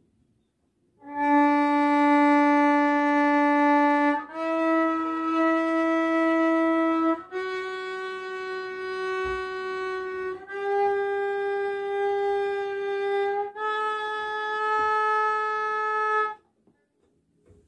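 Violin playing five long bowed notes, each held about three seconds, rising step by step up the D (third) string: D, E, F, G, A (Ré, Mi, Fá, Sol, Lá).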